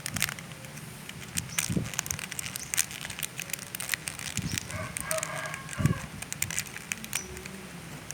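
Chicken, a pelung crossbreed, giving one pitched call about a second and a half long midway, over scattered clicks and knocks.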